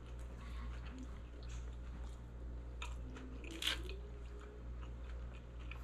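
A person chewing a mouthful of loaded nacho fries close to the microphone, with small mouth clicks and one louder click a little past halfway, over a low steady hum.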